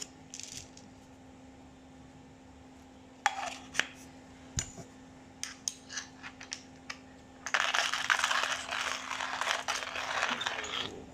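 Several sharp clicks and taps as the coffee grinder is handled, then about seven and a half seconds in, coffee beans crunching as they are ground, a dense crackling that lasts about three seconds.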